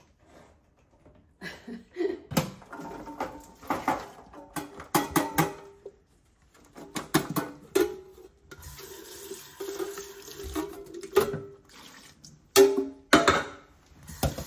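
Metal cans of hominy clanking and knocking with a short ringing as they are opened and emptied. About eight and a half seconds in, tap water starts running steadily under further clanks, as the hominy is rinsed.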